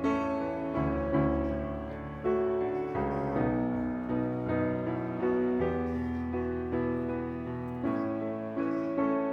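Background music: a gentle piano tune.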